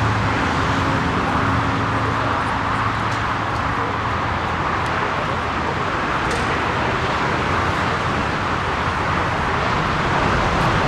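Jet airliner engine noise: a loud, steady rush, with a low hum that fades out in the first few seconds.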